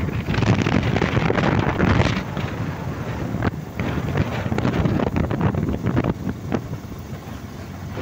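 Wind buffeting the microphone of a moving bike: a rough, gusting rumble that rises and falls, strongest in the first couple of seconds.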